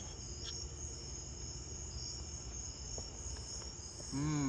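Field crickets chirping steadily in a continuous high trill. Near the end a person gives a short voiced 'mm'.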